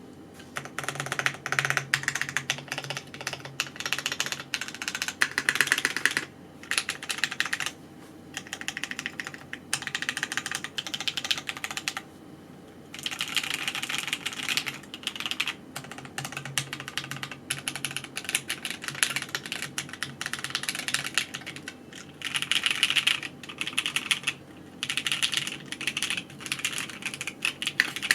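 Fast typing on a TGR 910 v2 custom mechanical keyboard with lubed Cherry-top Durock light tactile switches, a polycarbonate plate and GMK keycaps. The keystrokes come in runs of a few seconds, with short pauses between them.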